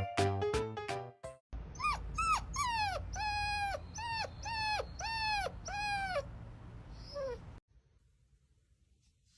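A dog whining in a quick run of short cries, each one sliding down in pitch. The cries start about a second and a half in, after a moment of music, and stop near the end.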